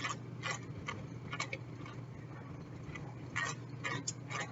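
Pepper being dispensed into a bowl of flour: a rhythmic run of short, sharp clicks, about two a second, with a brief pause in the middle.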